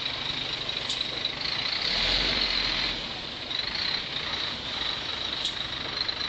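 Heavy diesel engine of the lifting equipment running steadily, growing a little louder for about a second around two seconds in, with a steady high hiss over it.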